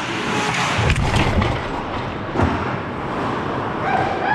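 Ice hockey scramble in front of the goal: skates and sticks on the ice, with a heavy thud about a second in and a sharp knock about two and a half seconds in.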